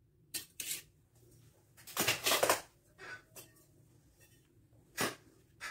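Scattered clicks and light clatters of a steel tape measure and a piece of square steel tube being handled and set down on a table, with a longer rattle about two seconds in and a sharp knock about five seconds in.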